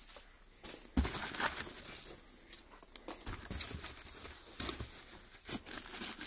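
Hands rummaging through packing material in a cardboard box: foam packing and clear plastic wrap rustling and crinkling irregularly, with a few sharper crackles.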